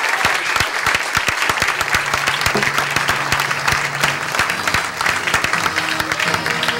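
Audience applauding: many hands clapping in a dense, irregular patter. About two seconds in, steady held notes of music start to sound under the clapping.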